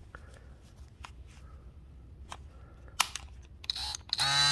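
Faint handling clicks and one sharp click about three seconds in, then a DeWalt DCS356 20V oscillating multi-tool starting up and running with a steady high buzz near the end.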